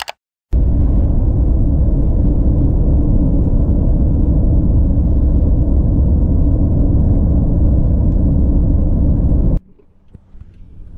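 Steady low rumble of a moving vehicle, even and unbroken; it starts about half a second in and cuts off abruptly near the end.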